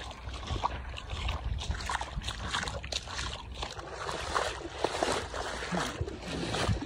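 Footsteps splashing through shallow brine over a salt crust, an irregular run of sloshing crackles. Wind rumbles on the microphone underneath.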